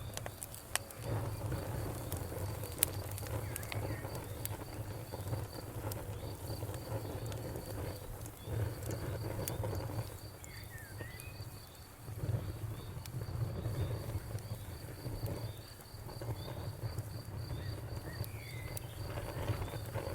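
Wood fire crackling, with a steady low rumble and occasional sharp pops. Insects chirp steadily in a high, evenly pulsed trill behind it.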